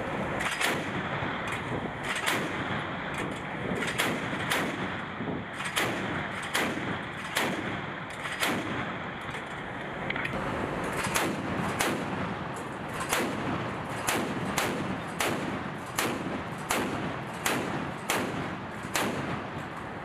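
Mk 38 25 mm naval gun firing single shots at a steady pace, about three every two seconds, over a steady rush of wind and sea.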